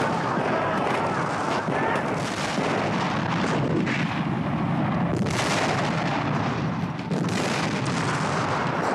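Battle sound effects: dense, continuous gunfire and cannon fire, easing briefly about seven seconds in.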